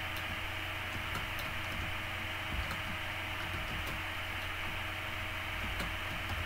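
Steady microphone hiss with a low electrical hum. A few faint, scattered clicks of keys being typed on a computer keyboard sound over it.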